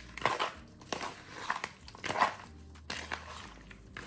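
A few short, irregular crunchy rustles and clicks of food being handled while raw shrimp are tossed in dry Cajun seasoning and smoked paprika.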